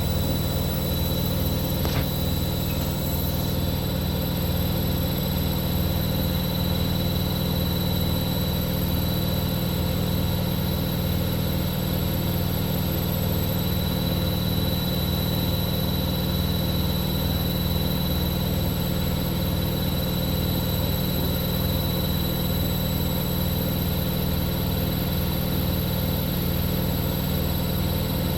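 Continental Edison washing machine on its 1200 rpm spin cycle, the drum spinning at a steady speed with an even hum. A single brief click about two seconds in.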